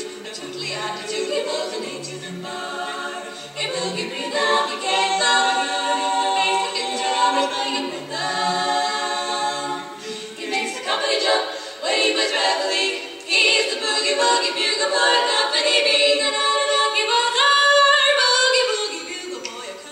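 Women's barbershop quartet singing a cappella in four-part close harmony, with a bouncing bass line under held chords; near the end the chord slides upward.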